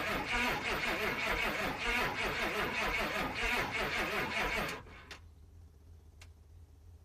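1989 Chevrolet G20's 6.2-litre diesel V8 being cranked over in quick, even pulses, then cutting off suddenly about five seconds in, followed by a couple of faint clicks. It is a hard start after the van stood for a year, with a new fuel transfer pump and the fuel system freshly bled.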